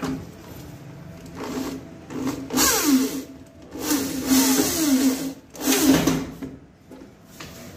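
Corded electric drill run in about four short bursts against a steel panel board box, its motor speeding up and slowing down with each burst.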